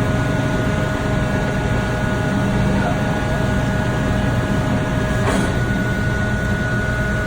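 Marvel 81A/10 vertical bandsaw running: a steady motor hum with a constant whine, and a brief click about five seconds in.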